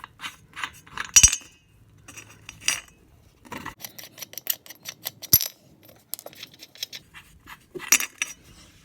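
Irregular metallic clicks and clinks of hand tools and small metal parts being handled while working on an ATV wheel, with a few louder ringing clinks, the loudest about a second in and near the end.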